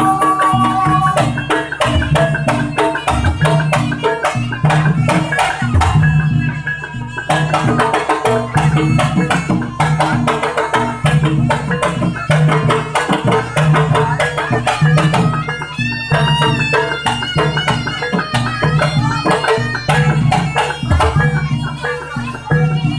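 Jaranan gamelan accompaniment: hand drums beat a fast, driving rhythm over a repeating low tuned-percussion pattern, with a wavering high melody line entering about two-thirds of the way through.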